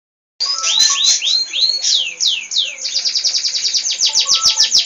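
Canary singing: a few rising-and-falling whistled notes, then a run of downward sweeps that speeds up into a rapid trill.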